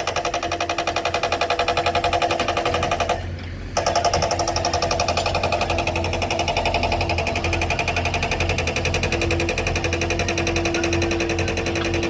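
Four-cylinder diesel engine of a JCB 3DX backhoe loader running under load with a fast, even clatter. The sound dips briefly about three seconds in, then continues with a steady whine over it.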